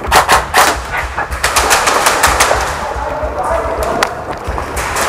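Airsoft guns firing: a quick string of sharp shots over the first two and a half seconds, then a few scattered single shots, one strong one about four seconds in.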